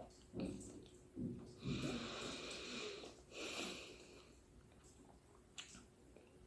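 Close-miked mouth sounds of eating juicy fruit: two short wet sounds, then two breathy sucking draws, the first about a second and a half long, the second shorter.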